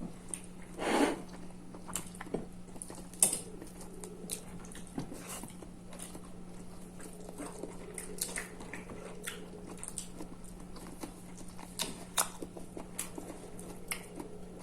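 Close-up eating sounds: a person chewing fish and rice, with many small wet mouth clicks, over a steady low hum.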